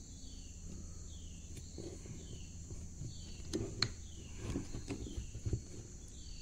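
Light knocks and clicks of the cast-iron governor housing and gear of a 1926 Fairbanks Morse Model Z engine being handled and turned over, a few short ones about halfway through and a little later, over a steady low hum.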